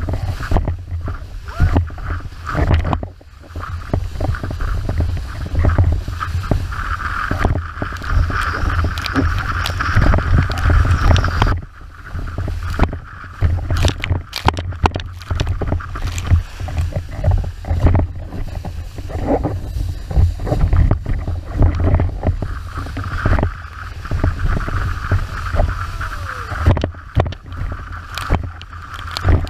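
An 81-litre wave windsurf board planing fast over chop: water rushing and spraying past the hull, with frequent slaps as it hits the chop, and a heavy rumble of wind on the microphone.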